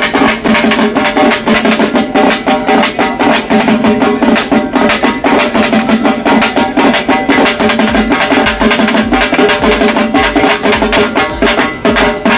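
A double-headed drum beaten rapidly with a stick in a fast, steady rhythm, with sustained pitched tones beneath the beat.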